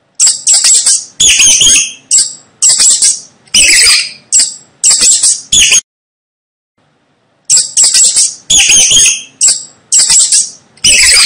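Mouse squeaking: quick runs of loud, high-pitched chirps for about five and a half seconds, a pause of nearly two seconds, then the same run of squeaks starting again.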